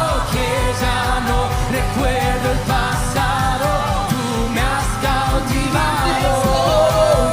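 Music with a sung lead voice over a fast, steady bass beat.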